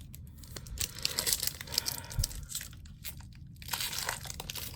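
Crinkling and tearing of a hockey card pack's wrapper being handled and ripped open, with rapid crackles for about three seconds, a short pause, then more crinkling.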